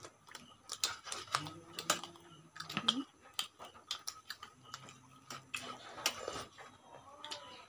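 People eating at close range: irregular wet clicks and smacks of chewing, with a spoon clinking against a steel dish, and twice a short low hummed murmur.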